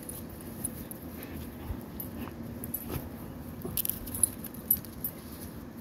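Dogs moving about and playing, a low rustling of movement with a few short, light high-pitched clicks about four seconds in.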